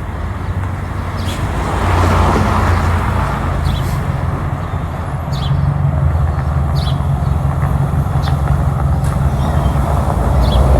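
A vehicle engine running with a steady low hum that grows louder about two seconds in, with short faint high chirps now and then.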